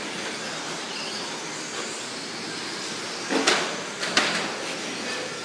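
RC short course racing trucks running on a dirt track: a steady mix of motor whine and tyre noise, with two sharp knocks about three and a half and four seconds in.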